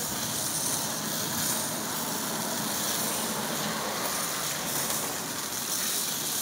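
Skewered sausages sizzling steadily over a charcoal grill, with a low hum of engine traffic behind.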